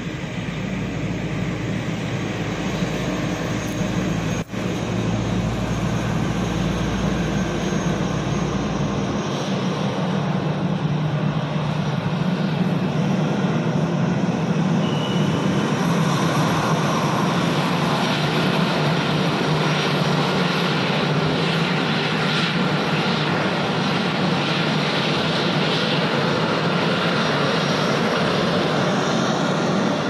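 Twin-engine jet airliner's engines running as it taxis: a steady jet noise that grows slowly louder over the first dozen seconds, then holds.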